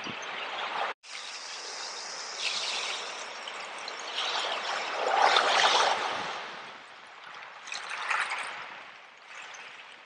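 Small ocean waves breaking and washing up over a beach of shells and pebbles, the surge swelling to its loudest about five to six seconds in, with a smaller wash near eight seconds. The sound drops out for an instant about a second in.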